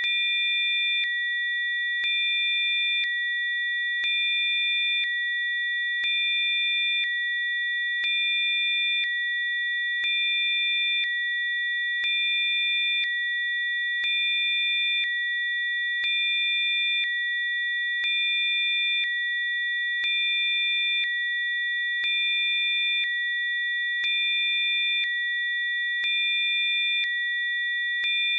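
Electronically generated pure sine tones, several held together in a steady high chord. A fainter set of extra tones switches on and off every second, with a faint click at each change.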